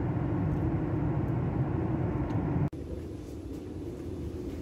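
Steady drone of an airliner cabin in flight: engine and airflow noise. About two and a half seconds in it cuts off abruptly and gives way to a quieter steady hum.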